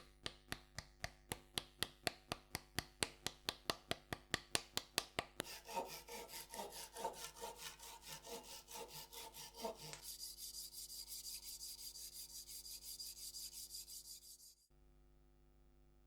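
Hand tool work on a workpiece: quick, even scraping strokes, about five a second, then after about five seconds a denser rasping, and from about ten seconds a steady hiss with a faint high whine, which cuts off suddenly near the end.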